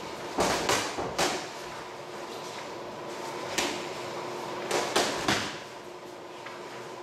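Boxing gloves landing in sparring: sharp padded smacks in quick combinations, three about half a second in, a single one in the middle, and three more around five seconds in.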